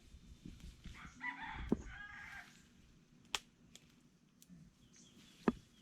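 A rooster crowing once, starting about a second in and lasting about a second and a half. A few sharp clicks follow, spread over the next few seconds.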